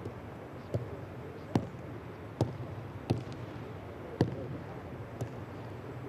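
Footballs being kicked on a grass pitch: about six sharp thuds at irregular intervals, roughly one a second.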